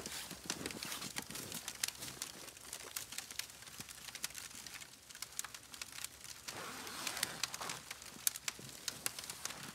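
Crinkling and rustling of nylon tent fabric with snow crunching underfoot as a person climbs into a dome tent, a quick run of small crackles with a fuller burst of rustling a little past halfway.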